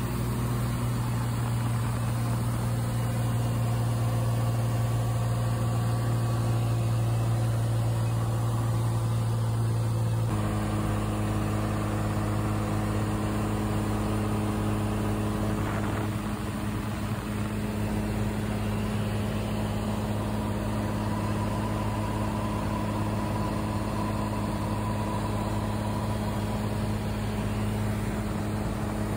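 Cessna 182's piston engine and propeller droning steadily in cruise flight, heard from inside the cabin. Its tone changes abruptly about ten seconds in, then holds steady again.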